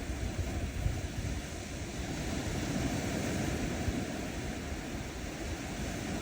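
Ocean surf washing on a sandy shore, a steady rush that swells about three seconds in, with wind buffeting the microphone.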